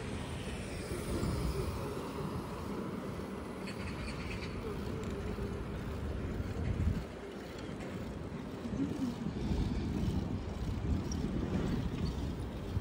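Steady low rumble of wind and road noise from riding a bicycle, with a truck passing close by. The truck grows louder over the last few seconds.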